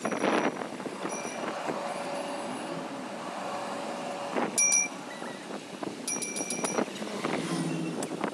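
Luas light-rail tram standing at a platform, with a steady electric whine for a couple of seconds. High electronic beeps follow: a loud one about four and a half seconds in, then a quicker run about six seconds in. A gust of wind buffets the microphone at the start.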